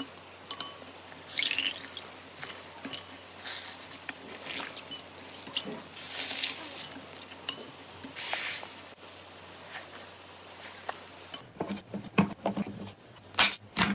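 Slime being squeezed and pressed by hand: irregular wet squelches, short hissy bursts and sticky popping clicks. About three-quarters of the way through, the squishes become heavier and lower.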